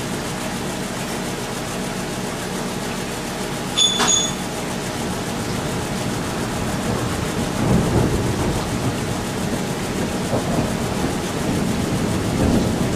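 Thunder after a lightning strike: a low rumble that begins about halfway in and swells and fades in several waves, over a steady background hum. A short sharp click with a high ring about four seconds in.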